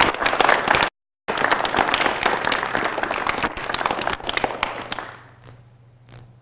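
An audience applauding, broken by a brief dropout about a second in, then dying away about five seconds in to a few scattered claps.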